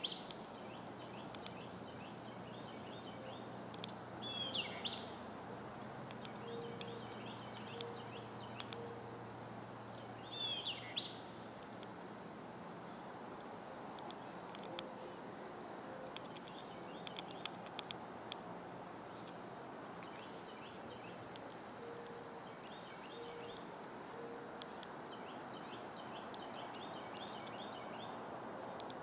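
A steady, high-pitched insect chorus trilling without a break. A bird's short falling chirp cuts in twice, about 5 and 11 seconds in.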